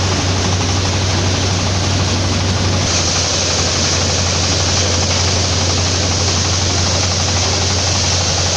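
A crop thresher for paddy, wheat and pulses runs steadily and loud. Its engine's low hum sits under a dense rushing noise from the threshing drum, with crop plants being fed into the drum. The upper noise grows brighter about three seconds in.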